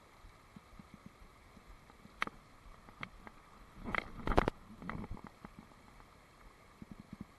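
Steady rush of a shallow riffle in a rocky stream, with scattered clicks and knocks on top, loudest in a quick cluster a little past the middle.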